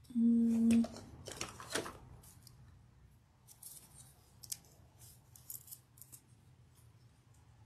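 A brief steady low hum about a second long right at the start, then small crisp plastic clicks and rustles as an acrylic paint tube is picked up from the table and its cap is opened.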